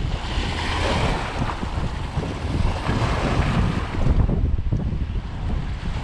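Small waves washing and splashing against the rocks of a seawall, with wind buffeting the microphone. The wash is strongest in the first few seconds and eases a little after about four seconds.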